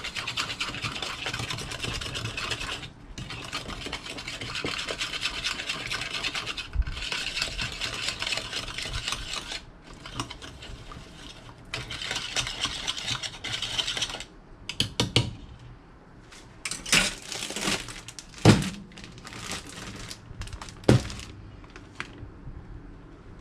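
A metal spoon and a silicone spatula stir and scrape a wet marinade around a plastic bowl, in long stretches with brief breaks. About two-thirds of the way in, the stirring gives way to a few separate sharp knocks and clicks.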